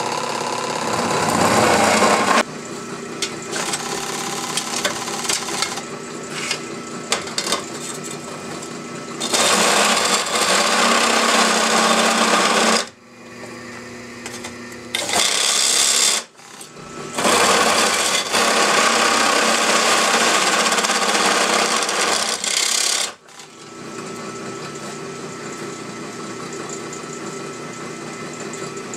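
Drill press running and its twist bit cutting holes through the steel shell of a semi-truck oil filter: several loud grinding stretches of a few seconds each, with the motor's steady hum between them and after the last cut.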